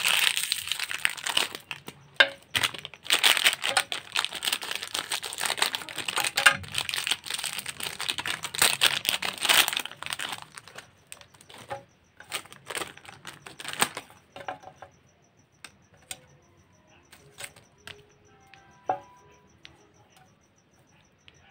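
Foil-and-plastic wrappers of Chupa Chups lollipops crinkling and tearing as they are peeled off by hand. The crackling is dense for about the first ten seconds, then thins out to scattered crackles and small clicks.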